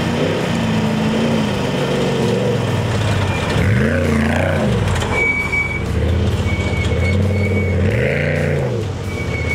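Trophy Truck Spec off-road race truck's engine revving hard as it passes and pulls away on dirt. Its pitch climbs and falls twice, about four seconds in and again near the end.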